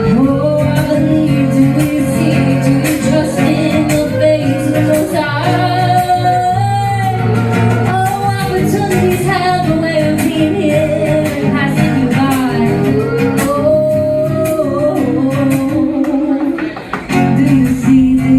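Live music: a guitar-backed song with a long, wavering sung melody line over a steady accompaniment, with a brief drop in the backing about three-quarters of the way through.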